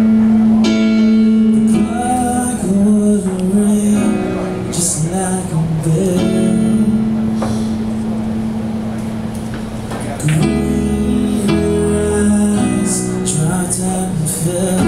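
Music with sustained pitched chords and a melodic line, guitar-like, with a fuller section coming back in about ten seconds in.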